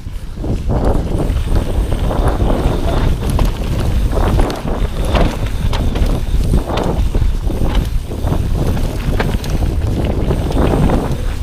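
Mountain bike ridden fast down a dirt trail: wind buffeting the on-bike camera microphone as a steady low rumble, with tyres scrubbing over the dirt in repeated surges and many short clicks and rattles from the bike over bumps.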